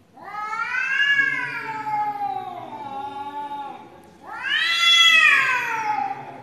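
Two cats in a fighting standoff caterwauling: a long drawn-out yowl that rises and then slowly sinks in pitch, followed about four seconds in by a second, louder yowl that rises and falls again.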